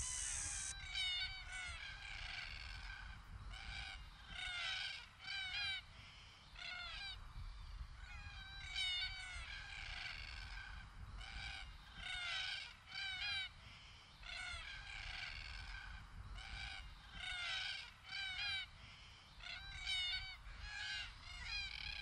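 A flock of red-tailed black cockatoos calling: short, bending calls from several birds, coming in clusters every second or two and overlapping at times.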